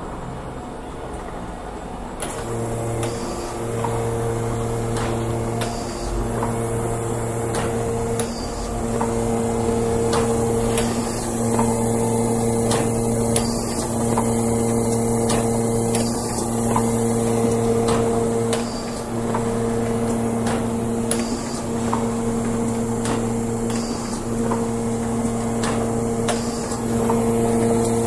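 Redington Model 9V vertical cartoner starting up about two seconds in and then running: a steady, pulsing motor hum with repeated sharp mechanical clacks as its carton-handling mechanism cycles.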